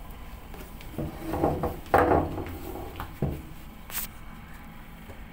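Plastic bags rustling, with a few knocks as things on a counter are handled, and a sharp click about four seconds in.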